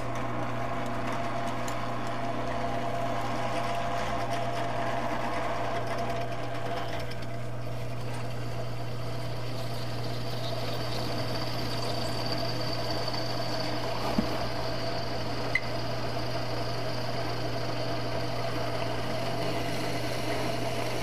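Millrite drill/mill switched on and running with a steady motor hum while the bit is fed into steel box tubing by the quill lever. A faint high whine shows in the middle stretch, and there are two sharp clicks a little past halfway.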